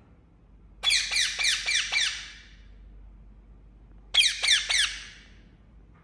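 Indian ringneck parakeet giving two quick runs of shrill, down-slurred calls: about five notes about a second in, then four more a little after four seconds in.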